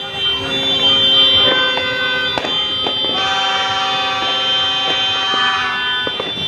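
Several horns sounding at once in long held notes, one strong blast lasting a couple of seconds near the middle, with sharp firecracker cracks scattered through.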